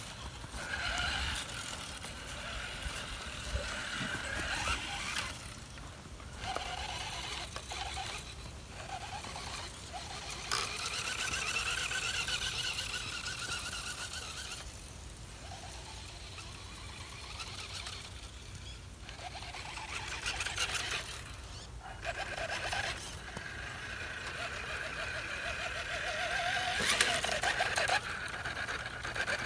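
Vintage Marui Big Bear radio-controlled monster truck's electric motor and gears whining as it drives through snow, the pitch rising and falling with the throttle and cutting out several times as it stops and starts, with a hiss of tyres churning snow.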